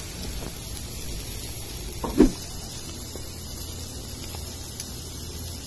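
Fork turning shrimp on a hot ridged grill, with one brief knock about two seconds in over a steady low background rumble.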